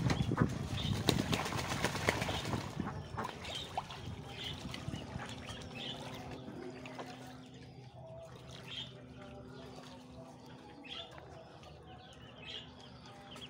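Ducks splashing and flapping in a shallow puddle of water for the first few seconds, then scattered short high chirps and peeps from the poultry flock over a faint steady hum.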